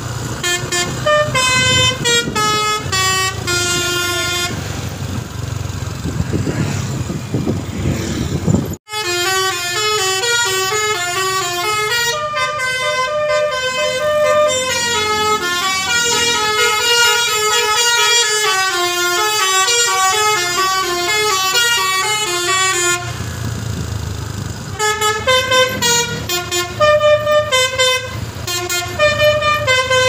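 Basuri telolet musical air horn on a Tunggal Jaya tour bus, playing quick melodies note by note. It plays short runs at first, then a long continuous tune after an abrupt cut about nine seconds in, and runs of notes again near the end, with the bus's engine and road noise heard between phrases.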